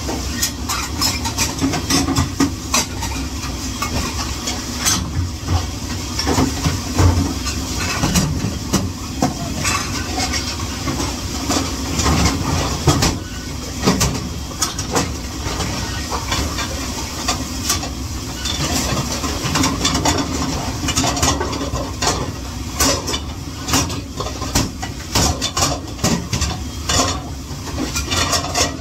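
Dishes and kitchenware clattering again and again during dishwashing, over a steady hiss and low hum.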